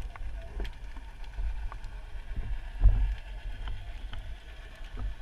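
Underwater sound from a submerged camera: a low, muffled rumble of moving water with scattered sharp clicks, and a heavier thump about three seconds in.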